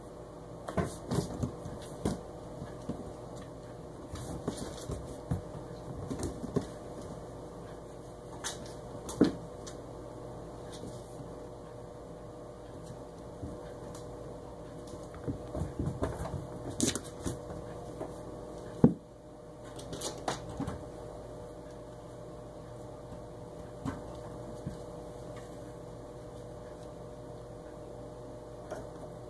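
Kittens scampering and tussling on a hard floor and bath mat: scattered light thumps, scuffs and knocks, the loudest about nine and nineteen seconds in, over a steady background hum.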